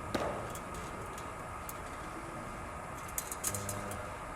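A single sharp knock of a cricket ball impact just after the start, ringing briefly, then a few lighter clicks near the end, over the steady whine of a spinning bowling machine.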